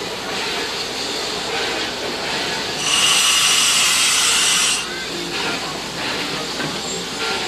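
Steam locomotive Reno's steady background hiss, with a loud burst of escaping steam lasting about two seconds, starting about three seconds in.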